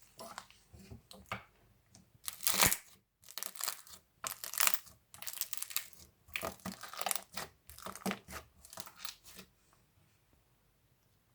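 Slime being pressed by hand, giving an irregular run of crackling, sticky squishes that stop about nine and a half seconds in.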